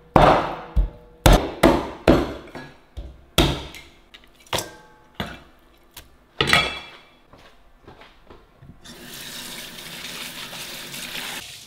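A knife chopping and smashing raw chicken bones on a cutting board, about a dozen sharp blows that come quickly at first and then more slowly, breaking the bones for stock. Near the end a tap runs steadily for about three seconds.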